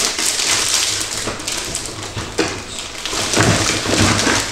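Crinkling and rustling of candy wrappers being handled and unwrapped by hand, a dense crackling that grows louder past the middle.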